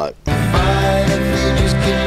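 Background music that starts about a quarter of a second in, right as the last spoken words end, and continues steadily.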